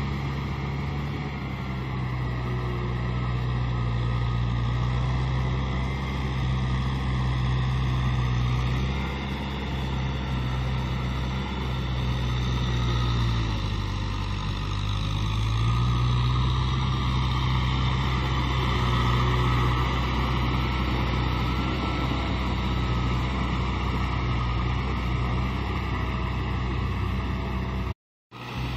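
Kubota M6040 SU tractor's four-cylinder diesel engine running steadily under load as it tills a flooded rice paddy into mud. Its note dips briefly about halfway through and then picks up again. The sound cuts out for a moment near the end.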